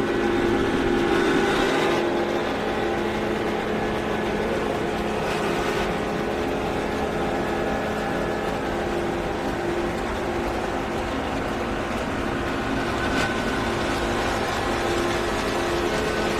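Hartford X-3240 double column CNC machining centre running, a steady machine hum with a constant whine.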